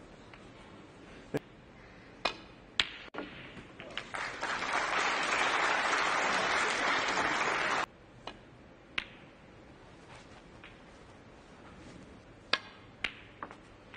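Sharp clicks of snooker balls: the cue tip striking the cue ball and balls knocking together, a few at a time. In the middle comes about three and a half seconds of audience applause, which cuts off abruptly.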